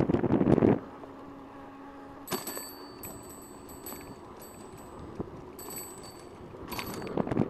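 Wind buffeting the camera's microphone on a moving bicycle, cutting off abruptly under a second in. Then a faint high-pitched ringing tone comes and goes several times over a low, quiet background.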